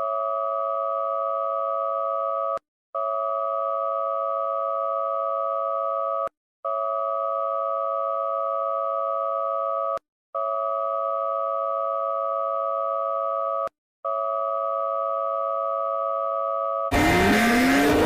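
Two-tone emergency alert attention signal: a steady, harsh dual tone sounded in long blasts of about three and a half seconds with brief gaps between them. Near the end it gives way to a louder, noisy sound with sweeping pitches.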